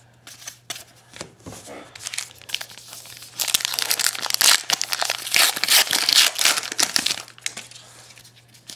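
Light clicks of cards being handled, then about three and a half seconds in a loud stretch of crinkling and tearing as the wrapper of a baseball card pack is ripped open, lasting about three and a half seconds before dying down.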